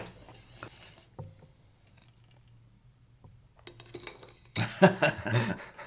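Metal cutlery knocking and clinking on plates while cake is served: a few faint clicks at first, then a loud clatter of several knocks past the middle.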